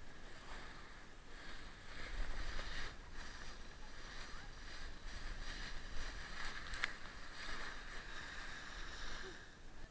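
Toboggan sliding down a snow slope: a steady rushing scrape of the sled over the snow with wind buffeting the camera's microphone, and a single sharp knock about seven seconds in. The noise falls away near the end as the ride slows.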